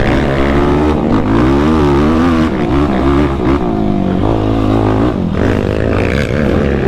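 Yamaha YFZ450R quad's single-cylinder four-stroke engine, through an aftermarket full exhaust, revving up and down again and again as the throttle is worked on and off.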